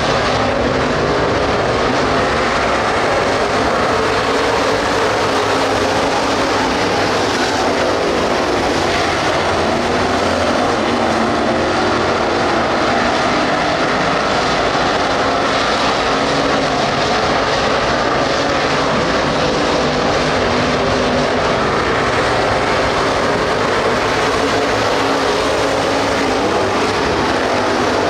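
Pack of street stock race cars running at racing speed on a dirt oval. Their engines blend into one steady, loud drone.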